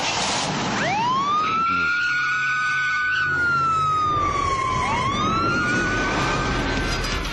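A siren wailing in two slow cycles. Each cycle sweeps up quickly, holds high, then slides slowly down, over a steady background of noise.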